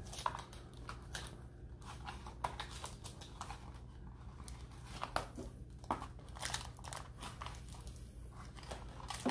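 Hands working at the cardboard insert and small fasteners that hold a toy RC truck in its packaging: scattered light scrapes, crinkles and clicks.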